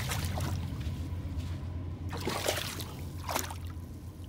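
A large mastiff wading and pawing in shallow lake water: a few separate splashes and sloshes, over a low steady rumble.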